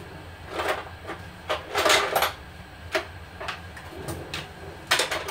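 Several short bursts of knocking and rustling from kitchen handling, the longest about two seconds in, over a steady low hum.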